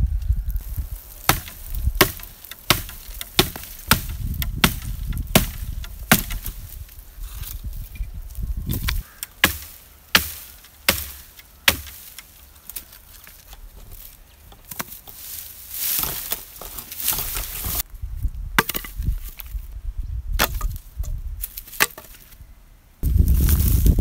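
Axe chopping wood: a run of sharp strikes about one and a half a second, thinning out to occasional strikes after about halfway. A loud low rumble sets in abruptly near the end.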